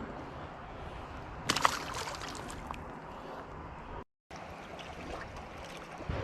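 Steady rush of flowing river water, with a brief clatter of sharp clicks about a second and a half in. The sound cuts out completely for a moment about four seconds in.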